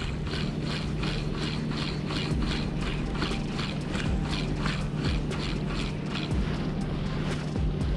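Shimano Stradic C5000XG spinning reel being cranked, a rhythmic whir of about three handle turns a second that stops about six seconds in, over a steady low hum and rumble.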